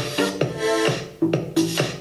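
Electronic dance track with a steady beat and synth notes playing from a small portable speaker shut inside a box of expanded polyethylene foam during a sound-insulation test.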